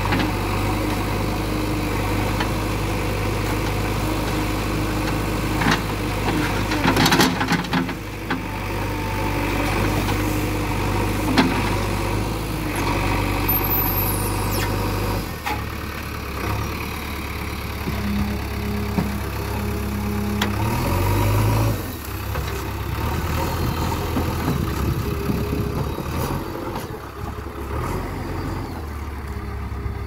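JCB 3DX backhoe loader's four-cylinder diesel engine running steadily under hydraulic load as the backhoe lifts a large log in its bucket, the engine note changing about halfway through. A few sharp knocks sound in the first half.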